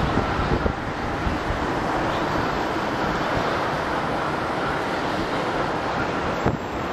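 Jet engine noise from a Boeing 737-700's CFM56 turbofans on final approach, a steady roar-like hiss as the airliner flares just above the runway, with wind buffeting the microphone.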